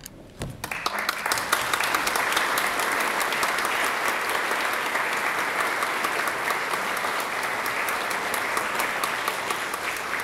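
A brief low thump, then audience applause starting about a second in: many hands clapping at once, dense and steady.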